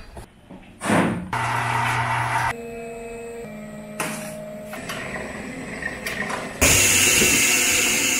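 Kitchen and noodle-making machinery sounds in quick edited cuts. A short whoosh comes about a second in, then steady machine hums through the middle, and a loud even hiss fills the last second and a half.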